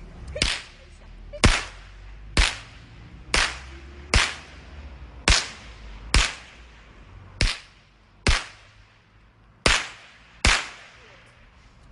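Snap pops (bang snaps) cracking one at a time, eleven sharp reports roughly a second apart, each with a short echo.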